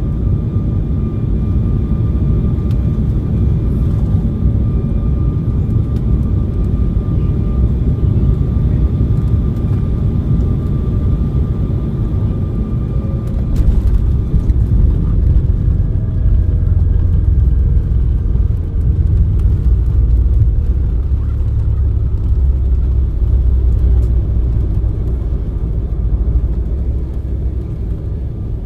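Embraer E175 airliner landing: its General Electric CF34 turbofans and airflow make a loud, steady low rumble with a thin engine whine. About 14 seconds in there is a short knock, and the rumble grows louder.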